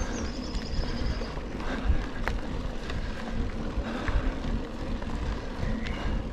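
Wind buffeting the action camera's microphone while riding a Rockrider XC 900 mountain bike along a dirt trail, with tyre and frame rattle. There is a sharp knock about two seconds in and a brief high chirping near the start.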